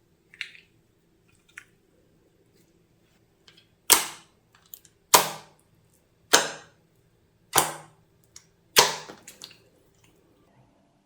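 Five loud, sharp snapping impacts, evenly spaced a little over a second apart, each dying away quickly, after a few faint clicks.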